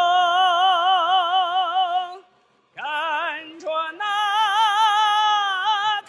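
A man singing solo in a high, operatic folk style, holding a long note with wide vibrato, breaking off about two seconds in, then rising into another long held note with vibrato.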